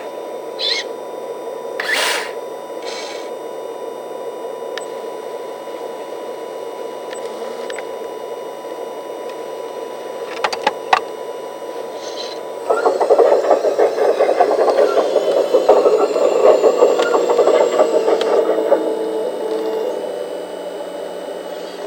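Small electric motors and gearing of a radio-controlled model sawmill machine running with a steady hum and a few sharp clicks. About 13 seconds in, a much louder, rough whirring with a whining gear tone starts and eases off slightly near the end.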